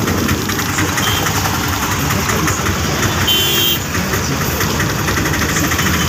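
Auto-rickshaw's small engine running with a steady, rattly pulse, heard from inside the open cab over street traffic. A short high-pitched tone sounds a little over three seconds in.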